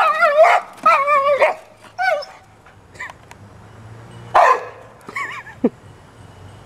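A dog giving a string of wavering, howl-like yowls and barks, three in quick succession and then two more a couple of seconds later. It is agitated by the lawn mower.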